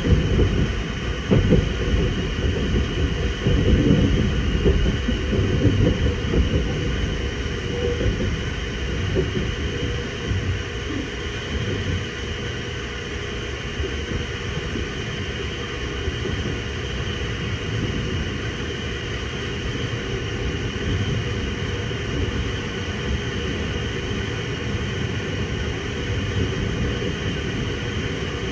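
Sunrise Izumo sleeper train, a 285 series electric multiple unit, running at speed, heard from inside the carriage. A continuous low rumble of wheels on rail with rattles and knocks, busiest in the first ten seconds and then steadier, as the train runs through a station without stopping.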